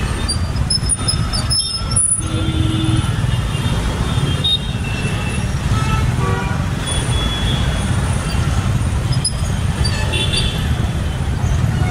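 Jammed city traffic of scooters, motorcycles and auto-rickshaws: a steady low rumble of engines with short horn toots scattered throughout, one lower horn held for under a second a little after two seconds in.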